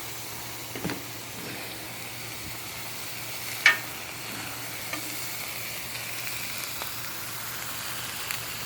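Burgers and vegetables sizzling on a gas griddle, a steady frying hiss. A faint knock comes about a second in, and one sharp, ringing clink a little past the middle.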